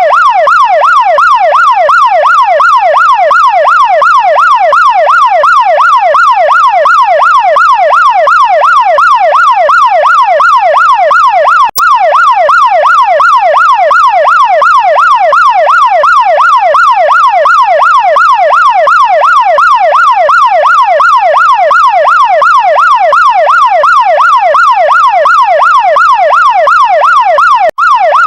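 Chinese fire truck's electronic siren, its pitch sweeping up and down about twice a second in a fast, even cycle. It cuts out for an instant twice.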